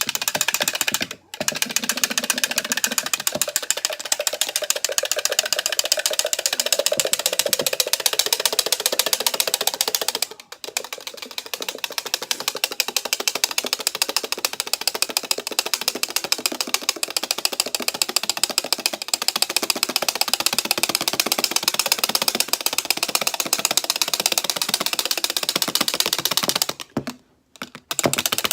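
Whipping cream by hand: a wire whisk beating rapidly against the side of a bowl in a fast, steady rhythm of many strokes a second, pausing briefly about a second in, around ten seconds in and near the end.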